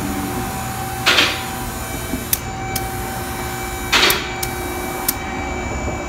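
Two short hisses of compressed air from a tire inflator pressed onto a car wheel's valve stem, about a second in and again about four seconds in, with a few light clicks between them over a steady hum.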